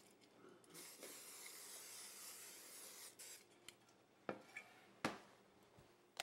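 Non-stick cooking spray hissing steadily from an aerosol can into a casserole dish for about two seconds, then a few light knocks.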